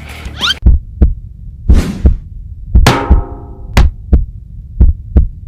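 Cartoon heartbeat sound effect: low, heavy double thumps about once a second, starting as the background music cuts off with a short rising whistle about half a second in. A swoosh about two seconds in and a sharp hit with a ringing tail near three seconds come over the heartbeat.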